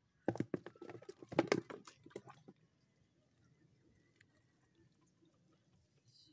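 Water splashing in a quick run of sharp slaps for about two seconds, then only faint background.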